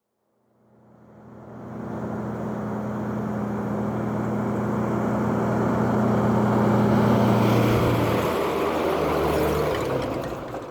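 An engine running steadily, fading in over the first couple of seconds; its pitch drops about eight seconds in, and it fades away near the end.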